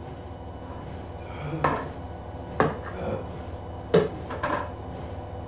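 Metal fork clinking and scraping against an open tin of fermented fish, with two sharp clinks, one about halfway through and one about four seconds in.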